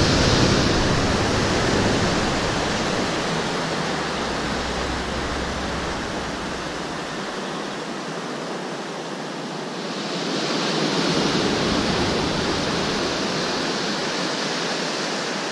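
Rough ocean surf breaking and washing, a steady rushing that swells near the start and again about ten seconds in.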